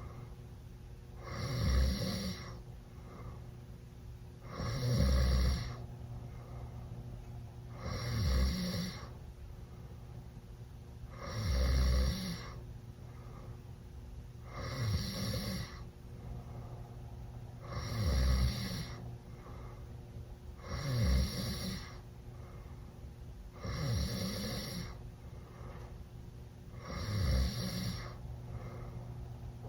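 A teenage boy snoring extremely loud with his mouth open, drunk: a loud snore on each breath in, about every three seconds, nine in all, with quieter breathing between them.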